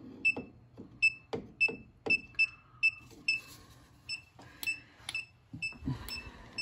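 Klein ET310 circuit breaker finder's receiver beeping, short high beeps about twice a second, signalling that it has found the breaker feeding the traced circuit. Low knocks of handling come in between the beeps.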